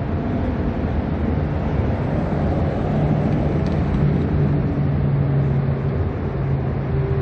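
A motor vehicle's engine running with a steady low hum, its pitch wavering a little.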